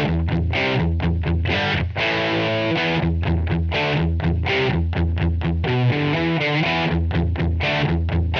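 Electric guitar played through a Line 6 POD 2.0 amp-modelling processor on one of its default patches, recorded direct: a riff of quick, repeated low notes and chords.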